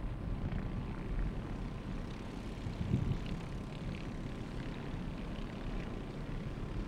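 Junior off-road racing karts running at speed on a dirt track: a steady, even engine noise from several karts at once.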